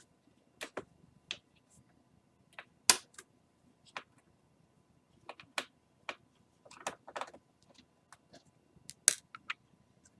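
Irregular small clicks and taps of hand tools on the plastic screen bezel of a laptop, with a short quick run of clicks about seven seconds in, as a tiny Phillips screw behind a corner sticker is worked out.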